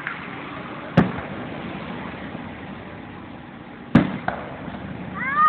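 Aerial firework shells bursting: two sharp bangs about three seconds apart, the second followed a moment later by a smaller pop.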